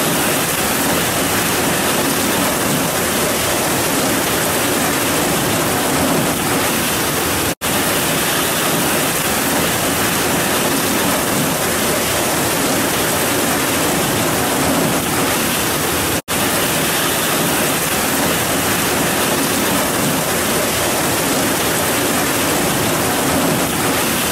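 Heavy rain pouring down in a steady, dense hiss. It cuts out for an instant twice, about seven and a half seconds in and again about sixteen seconds in.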